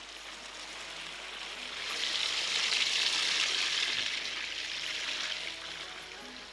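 Water from an artificial garden waterfall pouring and splashing into a pond: a steady rushing hiss that swells to its loudest a couple of seconds in, then eases off.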